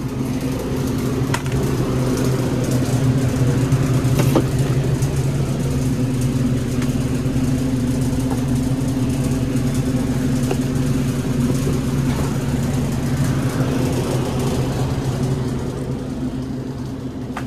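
Walk-in beer cooler's refrigeration unit humming steadily with a low drone, easing off a little near the end.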